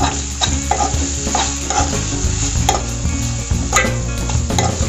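Perforated steel spatula scraping and clicking against a non-stick kadai while stirring an onion-tomato masala that sizzles in oil. The sharp scrapes come irregularly, about once or twice a second.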